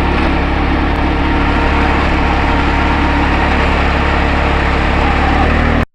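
Engine of a Wolf-Garten ride-on garden tractor running steadily, cutting off abruptly at the end.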